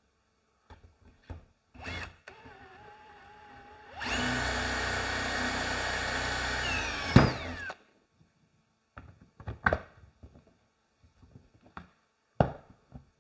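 A battery-powered tool's electric motor runs steadily for about three and a half seconds, then winds down with a falling whine. Scattered knocks and clicks come before and after it.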